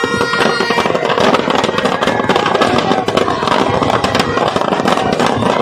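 Firecrackers packed inside burning Ravana effigies going off in a rapid, unbroken string of bangs and crackles.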